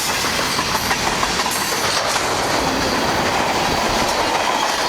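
Train passing close by: railroad cars rolling past with a steady noise of wheels on rail and repeated clicks from the wheels over the track.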